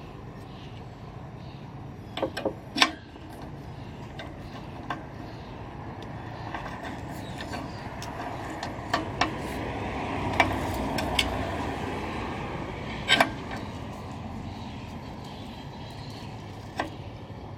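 Scattered sharp clicks and knocks, about ten of them, of parts and tools being handled as a hand reel mower is taken apart, over a steady background rumble that swells and fades around the middle, like a vehicle passing.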